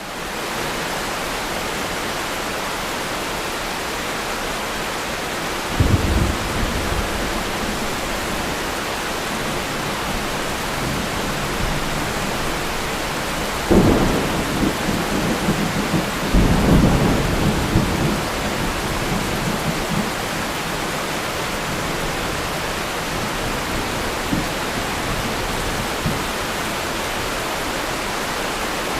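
Thunderstorm: steady rain falling throughout, with thunder rumbling in three surges, a short one about six seconds in, a sharper crack near the middle, and a longer rolling rumble just after it.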